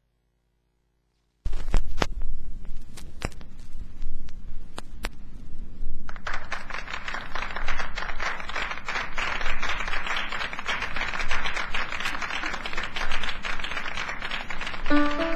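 Vinyl record surface noise starting abruptly: a low turntable rumble with scattered crackles and pops. From about six seconds in, a live club audience applauds, and a piano starts playing near the end.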